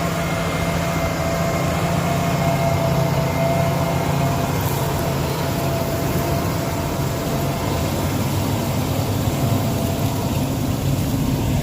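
Potato harvesting machinery running steadily in the field: a continuous heavy engine drone with a thin, steady whine above it.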